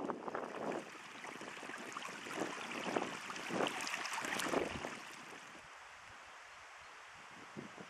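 A shallow, clear stream babbling and trickling over stones. It drops to a much fainter, steady hiss about five seconds in.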